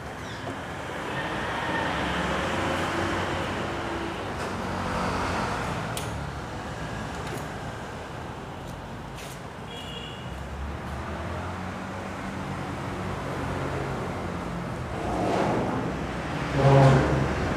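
Steady traffic noise with a low hum, with a few sharp knocks and rattles as motor scooters are wheeled along a steel mesh truck ramp. A short high squeak comes about ten seconds in, and a louder burst near the end.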